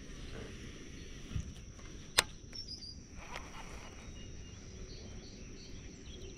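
Insects droning steadily at one high pitch, with a few short bird chirps and a low outdoor hum, and one sharp click about two seconds in.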